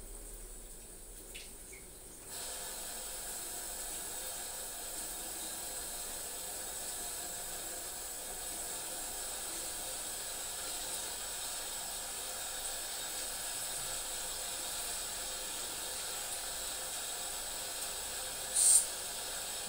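Water running steadily from a bathroom sink tap as a cat is washed in the basin, starting about two seconds in. Near the end there is one brief, loud, sharp burst of noise.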